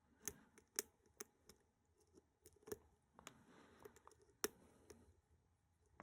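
Faint, irregular clicks of a lock pick and tension wrench working the pins of a pin tumbler lock held in a vise, the sharpest click about four and a half seconds in.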